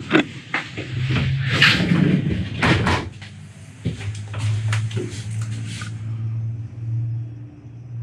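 A quick run of knocks and clicks over the first three seconds, then a steady low hum.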